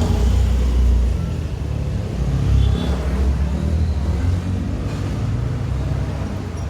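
Low engine rumble of a motor vehicle, swelling near the start and again about two and a half seconds in.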